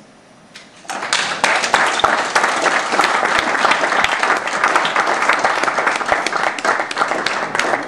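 Audience applauding, starting about a second in: many hands clapping densely and steadily.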